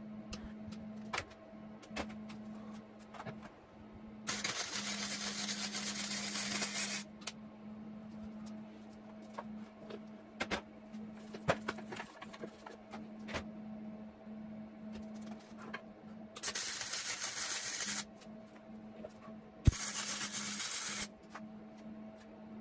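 MIG welder arcing in three bursts, one of about three seconds and then two of a second or so, while the scooter's tube frame is welded. Clicks and knocks from handling the frame fall between the bursts, over a steady low hum.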